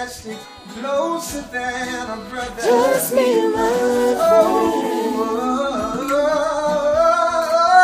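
Singing, with a guitar played along; the voice glides between notes and holds long notes through the second half.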